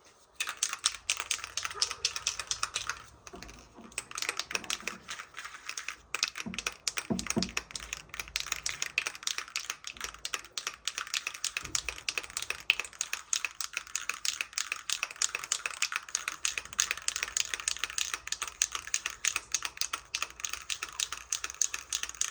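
Rapid, dense clicking and rattling that goes on almost without a break, with a short pause about three seconds in.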